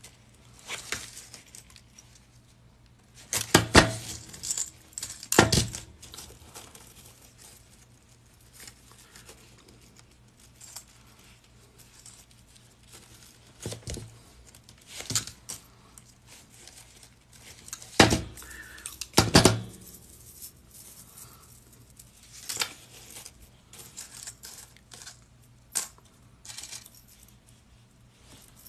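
Metal jump rings clinking and jangling as a chainmail piece is worked by hand with pliers: scattered sharp clicks at irregular intervals, loudest a few times around four to six seconds in and again around eighteen to twenty seconds in.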